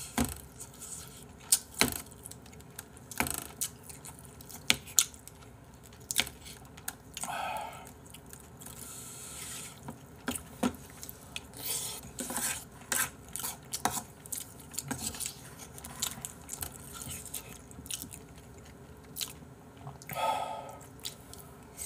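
Eating sounds: a spoon tapping and scraping against bowls in scattered sharp clicks, with chewing in between.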